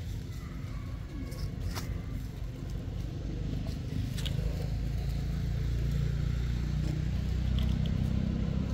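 Low engine rumble of a motor vehicle, growing louder from about three seconds in, with a few short crackles of dry leaves.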